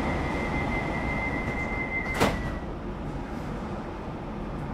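Class 378 electric train's sliding passenger doors closing: a steady high warning tone sounds until the doors shut with a single sharp thud about two seconds in, and the tone stops. A low rumble of the standing train runs underneath.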